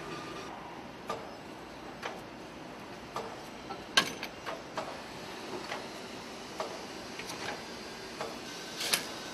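Car assembly line ambience: a steady machinery hum with irregular sharp clicks and knocks. The loudest knock comes about four seconds in, and a short burst of clicks comes near the end.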